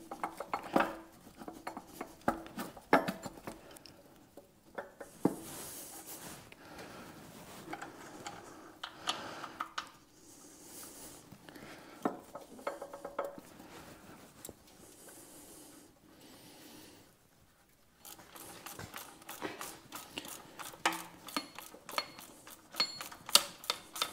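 Steel gears, shims and bearing retainer clink and clank against the cast-iron transmission housing of a Farmall H as the main sliding gear shaft assembly is worked into place by hand. Near the end comes a quick run of ratchet clicks as the bearing retainer bolts are drawn down.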